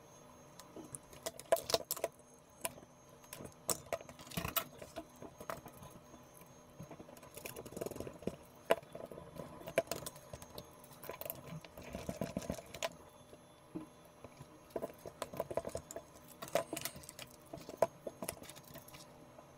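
Small metal hardware clicking and rattling in irregular bursts: a thick earth wire being fastened with a bolt and fitting to the soldering station's metal casing.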